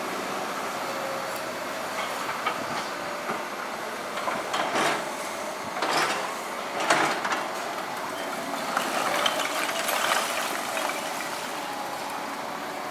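Liebherr crawler excavators running steadily while a bucket digs into brick demolition rubble, with several bursts of brick and rubble clattering between about four and eleven seconds in, loudest around six and seven seconds.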